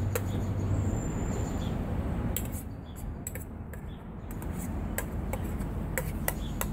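Scattered light clicks and taps of a stainless steel bowl and utensils being handled on a table, a few of them close together in the second half, over a steady low background rumble.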